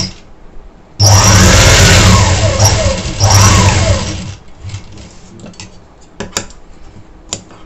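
Industrial sewing machine running in one burst of about three seconds as it stitches a quarter-inch seam, then stopping. A few light clicks follow.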